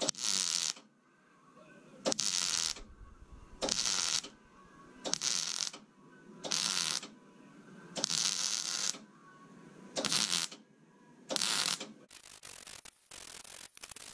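Electric welding arc crackling in about eight short bursts, roughly one every second and a half: stitch welds laid on a steel car frame to fix a reinforcing fish plate at a corner. Near the end the welding stops and a few clicks and handling noises follow.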